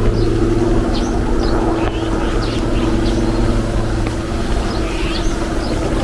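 Steady mechanical hum of a running motor, with small birds chirping repeatedly over it.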